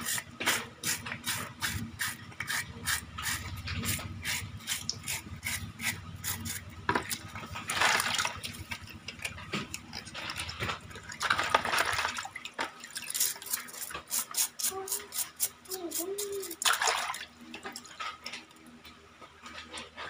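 A small brush scrubbing the rubber seal of a washing machine's drain valve in a basin of water: quick, repeated scratchy strokes, about three a second, with water sloshing a few times.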